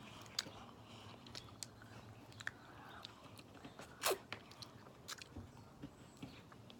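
Faint chewing and biting with scattered small crunches and clicks, and one louder crunch about four seconds in.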